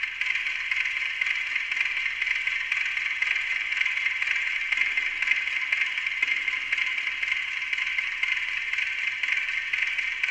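Amplified ticking of a Westclox Silver Bell Monogram clock played through a digital delay system, the delayed copies layered into a dense, even stream of ticks.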